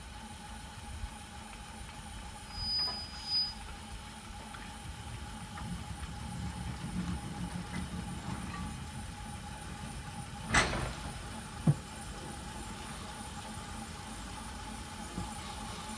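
Rail crane car creeping along the track: a steady hum over a low rumble, two brief high squeaks early, then a sharp crack about ten seconds in and a dull thump a second later.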